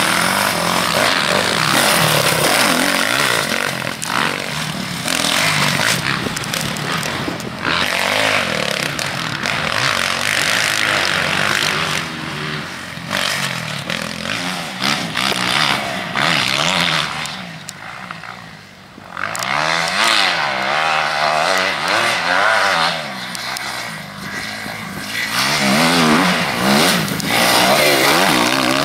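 Motocross bike engine revving up and down as it is ridden round the track. It drops off briefly about eighteen seconds in, then pulls hard again.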